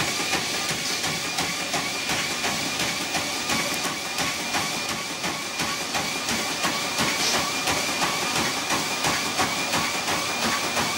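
Footfalls of a runner striking a NordicTrack treadmill belt about three times a second, over the steady hum of the treadmill's motor and belt.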